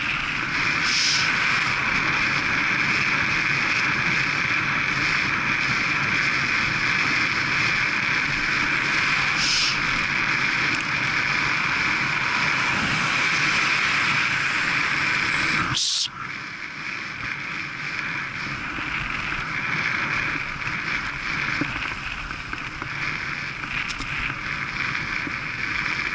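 Steady rush of wind and tyre-on-road noise from a road bike ridden at about 25 mph, heard on a camera mounted on the bike. About sixteen seconds in there is a sharp click, after which the rush is noticeably quieter.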